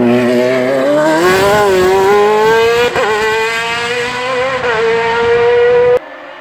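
Sport prototype race car's engine at full throttle accelerating away out of a hairpin, its note rising steadily in pitch with a brief break about three seconds in. The sound cuts off abruptly near the end.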